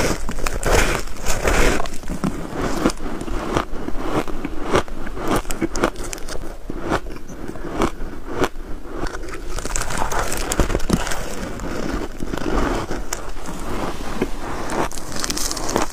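A person chewing dry shaved ice, close to the microphone: a dense, continuous run of crunching and crackling.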